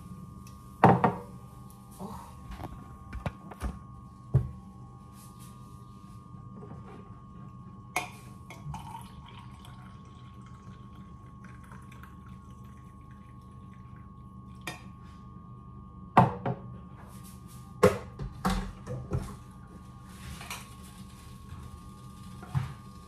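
Clinks and knocks of a ceramic mug and a glass coffee carafe being handled and set down on a kitchen counter, with coffee poured from the carafe into the mug partway through. A steady electrical hum runs underneath.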